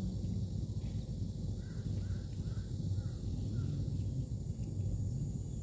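A bird calling several short times in quick succession, over a steady low rumble.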